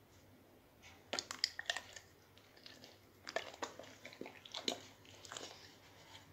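A dog taking food from a plastic spoon and chewing it: wet clicks, smacks and crunches in three short clusters, the first about a second in.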